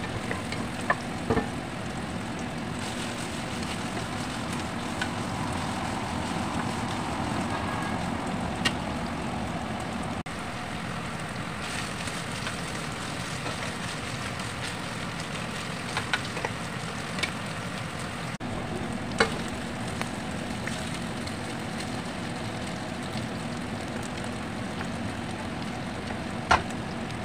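Chicken strips and diced onion and garlic sizzling in hot oil in a frying pan and a pot, a steady sizzle. Several sharp knocks of a wooden spatula against the pan break in, the last near the end as the chicken is scraped into the pot.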